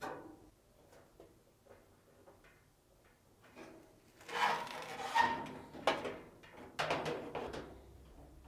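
Sheet-metal rear drum assembly of a Samsung dryer being fitted back onto the cabinet: a few light clicks, then several seconds of metal scraping and clunking as its brackets are slid onto the mounting tabs.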